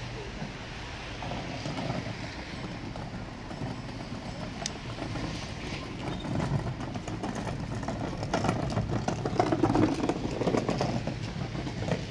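Outdoor ambience with a steady low rumble like road traffic, swelling for a few seconds past the middle.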